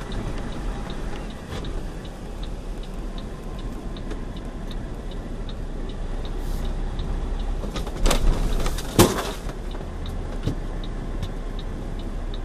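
Semi-truck cab interior: the engine runs low and steady while the turn signal ticks evenly, a few clicks a second. About eight seconds in, a loud hiss of air lasts about a second and ends in a sharp knock.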